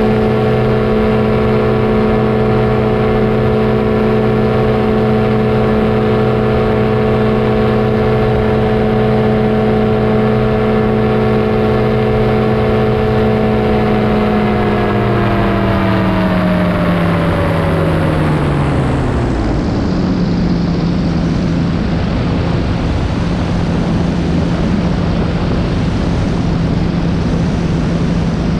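Powered parachute's engine and propeller running steadily at flight power, then throttled back about halfway through, the pitch sliding down over several seconds to a low steady idle. At idle the engine gives no thrust, so the craft descends as in a dead-stick, engine-out approach, and wind rush becomes more prominent.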